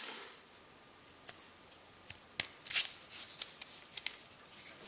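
Thin quarter-inch plywood parts clicking and rubbing against one another as they are handled. The sound is mostly quiet at first, then a scatter of light clicks and rattles begins about two seconds in.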